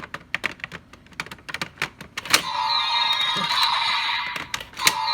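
Rapid plastic clicking as a DX Kamen Rider Geats toy buckle is fitted onto the transformation belt, then a sharp click about two and a half seconds in sets off the belt's electronic sound effect, a tinny tune with a falling tone played through its small speaker.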